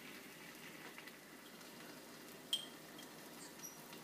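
Faint, steady sizzling of beaten egg cooking on a hot buttered griddle pan, with a single light clink about two and a half seconds in.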